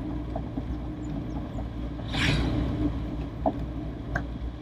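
Four-cylinder engine of a 1980 Toyota Corolla DX running steadily as the car drives along, heard from inside the cabin, with a short hiss about two seconds in.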